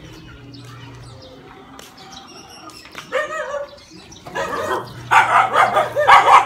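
A dog barking repeatedly, loudest and most rapid in the last two seconds.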